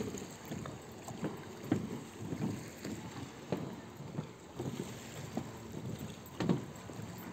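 Footsteps on wooden boardwalk planks, about two steps a second, over a steady rush of wind on the microphone and lake water.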